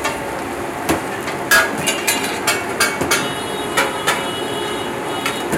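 Steel spatulas clanking against a flat iron griddle (tawa): a dozen or so sharp, irregular metal strikes.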